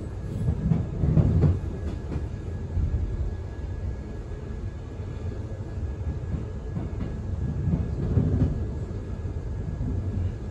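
Queensland Rail NGR electric train heard from inside the carriage while moving: a steady low rumble of wheels and running gear, swelling louder about a second in and again about eight seconds in.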